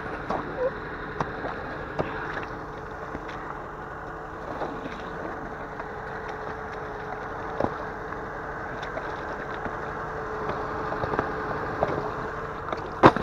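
A vehicle driving slowly through a puddle of broken ice: water sloshing and chunks of ice knocking and scraping, over a steady engine hum with a constant whine. A sharp, loud knock comes near the end.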